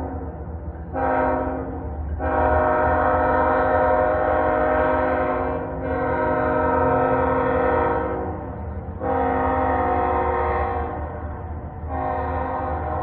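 A CSX freight locomotive's multi-chime air horn sounding a series of blasts: a short one about a second in, then three long ones, and another starting near the end, over the low steady rumble of the train.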